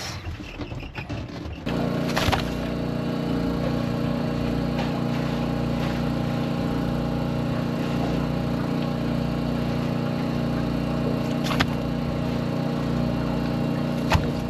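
Boat outboard motor running steadily at a constant pitch. It comes in about two seconds in, and there are a few brief knocks over it.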